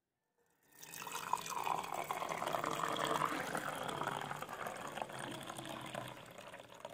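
Tea poured in a steady stream from a steel vessel into a glass tumbler, splashing and bubbling as the glass fills; the pour starts about a second in.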